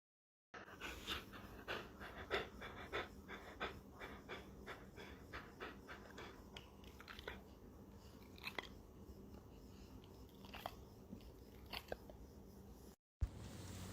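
A dog chewing and crunching something hard: quick sharp crunches a few times a second at first, thinning to occasional crunches, then cutting off near the end.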